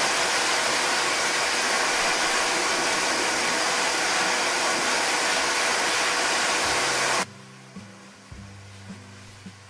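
High-velocity dog dryer blowing air through its hose: a loud, steady rush of air with a faint hum. It cuts off suddenly about seven seconds in, leaving soft background music.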